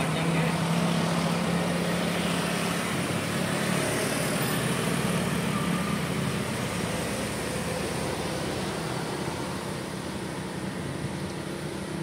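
Passing road traffic: cars and SUVs driving by on a steep winding climb. A steady engine hum for the first few seconds gives way to engine and tyre noise that slowly fades.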